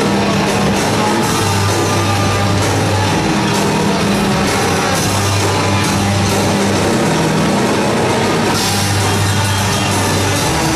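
Live heavy metal band playing loudly: distorted electric guitars and bass on a low riff, with the low notes held a second or two at a time, over drums and a constant wash of cymbals.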